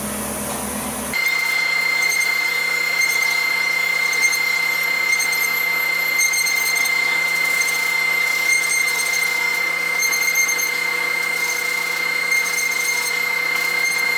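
CNC router cutting wood: a steady high whine over the rasp of the bit in the wood. The sound changes abruptly about a second in.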